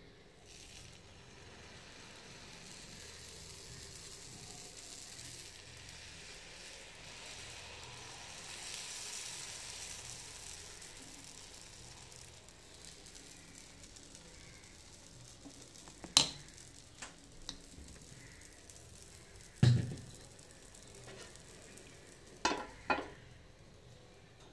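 Dosa batter sizzling on a hot oiled iron tawa, a steady hiss that is strongest about a third of the way in. In the second half there are several sharp metal clinks and knocks of steel utensils against the pan. The loudest is a clank with a low thud, followed by a steel plate being set over the pan.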